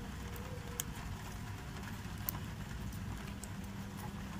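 Faint steady patter of light rain, with scattered sharp ticks of single drops.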